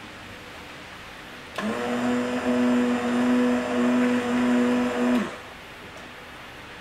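Stick blender running in a plastic jug of cold process soap batter, switched on about one and a half seconds in and off about five seconds in, its motor hum rising and falling in loudness as it blends the oils and lye together.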